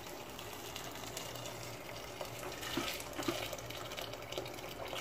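Hot water poured in a steady stream from a stainless-steel kettle into a pressure-cooker pot of soaked chickpeas, splashing onto the chickpeas as the pot fills.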